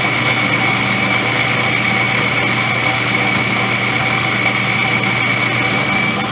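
Metal lathe running steadily while a boring cutter enlarges a hole, with a steady high whine that stops just before the end.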